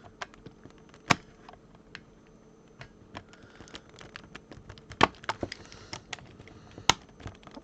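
A knife cutting and prying at hard plastic toy-car packaging, making irregular sharp clicks and cracks, the loudest about a second in, near five seconds and near seven seconds.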